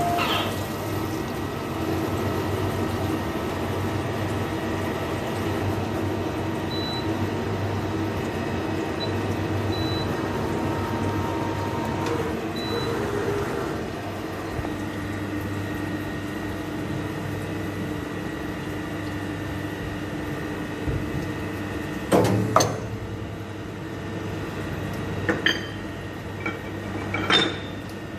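CNC drilling machine running steadily with a humming tone that shifts pitch about halfway through, then a few sharp knocks near the end.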